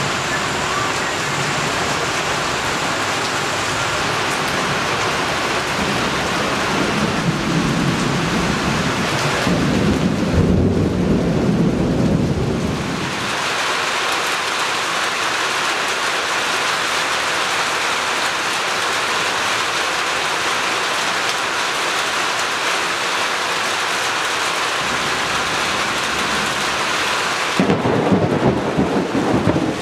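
Steady heavy rain falling during a thunderstorm, with thunder rumbling twice: a long roll about seven to thirteen seconds in and another starting near the end.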